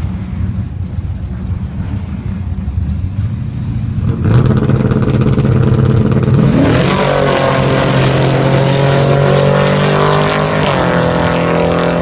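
Drag-racing pickup truck engine at the start line: idling, brought up to a louder held rev about four seconds in, then launching and accelerating hard with the pitch climbing, a gear shift dropping the pitch briefly near the end before it climbs again.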